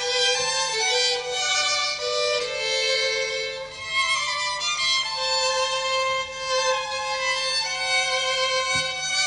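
Two violins playing a duet: a slow melody of long, held notes, with one note sustained for several seconds in the second half.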